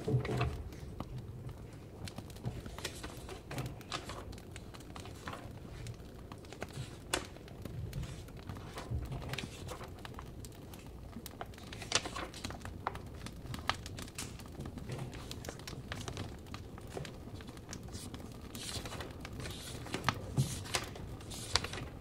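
Burning firewood crackling, with irregular small pops and snaps over a low steady hiss.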